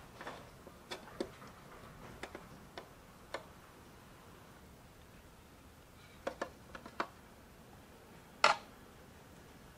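Light clicks and taps of miniature toy kitchen parts being fitted together: a tiny faucet pushed into the sink's hole, then the sink top set down onto its cabinet. The clicks are scattered, with a quick cluster about six seconds in and one louder knock near the end.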